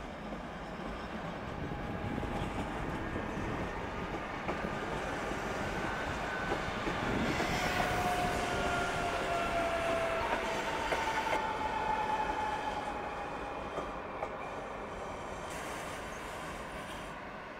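A CP passenger multiple-unit train running past along the station platform. The wheel-and-rail noise builds up, is loudest in the middle and fades away. Thin high squealing tones slide slightly down in pitch while the cars go by.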